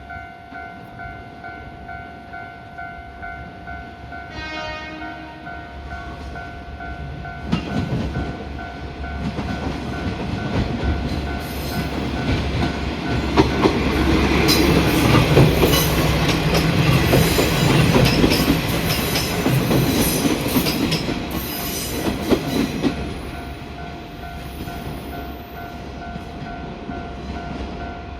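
Level crossing warning bell ringing steadily while a train sounds a short horn blast about four seconds in. The train then approaches and passes over the crossing with wheel and rail noise, growing louder, peaking in the middle and fading near the end.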